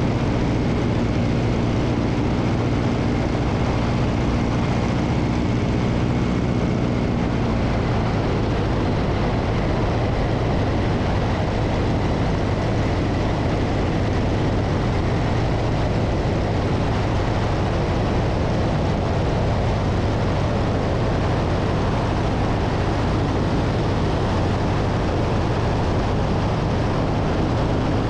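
Biplane's piston engine and propeller running steadily in cruise flight, with the rush of air over the wing. The engine's hum is plainest in the first several seconds, then blends into the wind noise.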